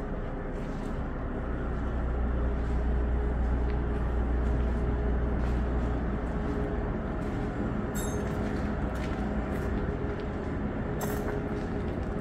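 A steady low rumble with a constant faint hum running under it, and a couple of brief sharp clicks in the second half.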